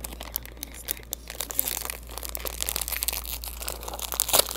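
Crinkling of a Takis chip bag as it is handled and squeezed: a dense run of fine crackles, with a louder burst near the end.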